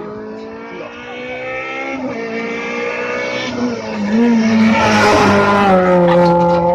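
Rally car engine at racing speed approaching and passing close by, growing louder to its loudest about two-thirds of the way in, its note shifting pitch several times as it changes speed and gear.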